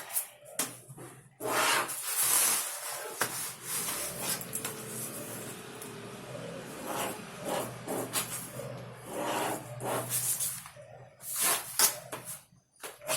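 Scratchy rubbing strokes of pattern lines being drawn onto fabric while drafting a dress bodice: one long run of strokes from about a second and a half in, then a few short quick strokes near the end.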